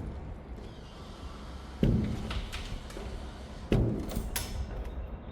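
Two sharp knocks on a storage container's door-hold hardware, about two seconds apart, each ringing briefly, with a few lighter clicks after them, as the parts are pushed and popped out.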